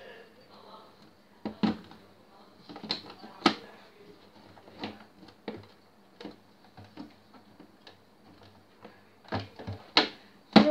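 Rummaging in a kitchen wall cabinet: containers on the shelf and the cupboard knocking and clicking in scattered taps, with the loudest knocks near the end.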